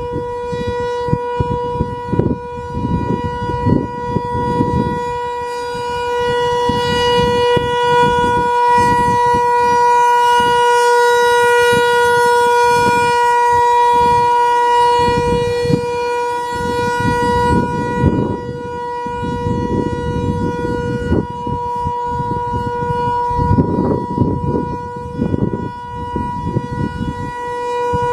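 ASC T-128 rotating outdoor warning siren sounding its steady alert tone, a single held pitch that swells louder through the middle and eases off again as the siren turns toward and away. Gusty wind buffets the microphone underneath.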